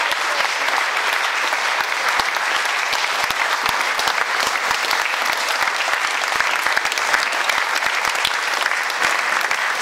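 A crowd of guests applauding, many hands clapping steadily.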